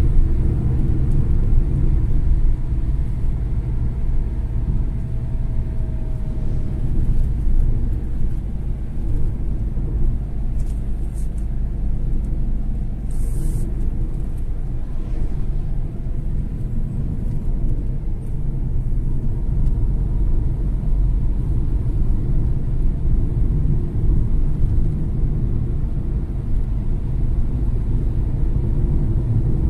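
Steady low rumble of engine and tyre noise inside a car driving at highway speed.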